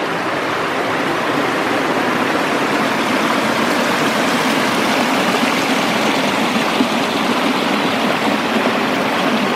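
Small woodland waterfall and creek rushing over rocks: a steady, loud rush of water that grows a little louder as the microphone moves close to the falling water.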